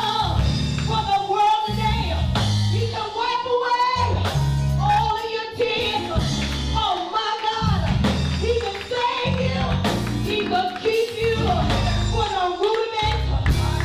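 A woman singing a gospel song into a microphone, her voice holding long bending notes over instrumental accompaniment with a strong bass that changes chord every second or so.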